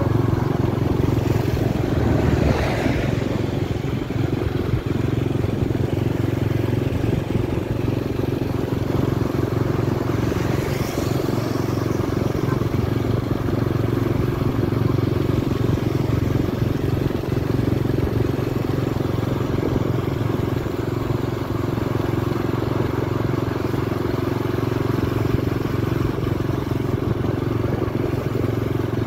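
Steady drone of a vehicle being ridden along a street, an even engine hum under road and wind rush. Two brief, fainter sounds sweep past at about two and ten seconds in.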